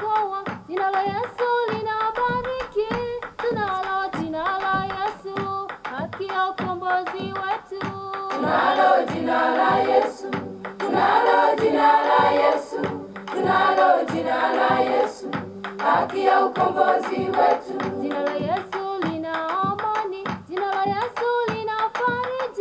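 Background music: a Swahili gospel song with a lead voice and choir over a steady beat. The choir swells louder and fuller for several seconds in the middle, then drops back.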